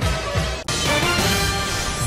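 TV news channel ident theme music. It breaks off for an instant just over half a second in, then a bright, sustained transition sting carries on.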